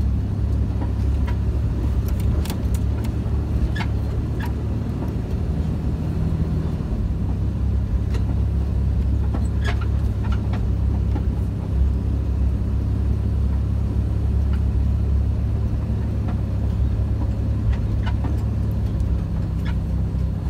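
Jeep driving slowly over a rough dirt trail, heard from inside the cab: a steady low engine and road drone, with scattered light clicks and knocks as it rolls over the bumps.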